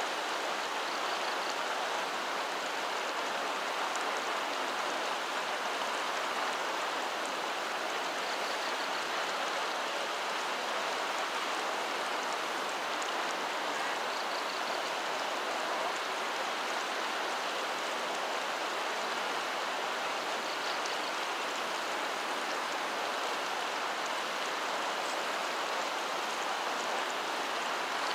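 Steady rushing of water with no breaks, like heavy rain or a stream. A faint short high sound recurs about every six seconds.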